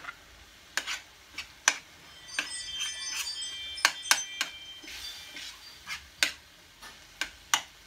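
A spoon stirring ground turkey as it browns in a skillet: a run of sharp clicks, taps and scrapes of the spoon against the pan. A brief ringing tone sounds about two and a half seconds in.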